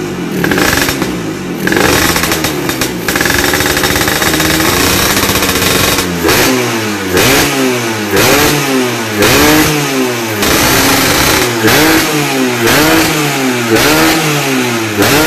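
Vespa scooter engine running through an HFR racing exhaust, being revved. For the first few seconds it rises and falls slowly; from about halfway it is blipped over and over, the pitch jumping up and back down about one and a half times a second.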